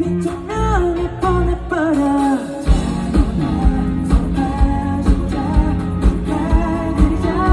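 Live pop-rock band performing with a sung vocal line over guitar; about a third of the way in the full drum kit comes in with a steady beat.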